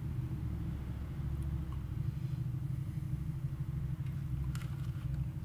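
Steady low mechanical hum, with a few faint light clicks about four and a half seconds in.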